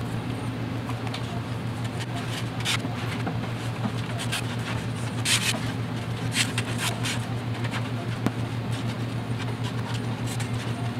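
A plastic spreader scraping and rubbing wet resin across a wooden kiteboard, in short irregular strokes, the loudest about five and a half and six and a half seconds in, over a steady low mechanical hum.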